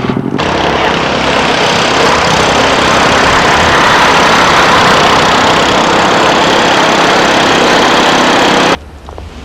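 Loud, steady engine noise without a clear pitch, cutting off suddenly near the end.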